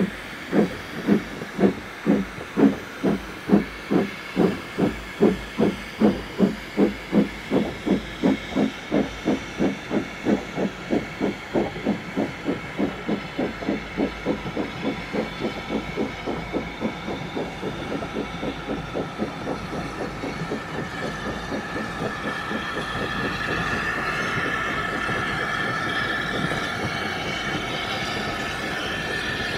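Steam locomotive exhaust beats as the engine works a train, about two chuffs a second. The beats quicken and fade after about fifteen seconds into a steady steam hiss.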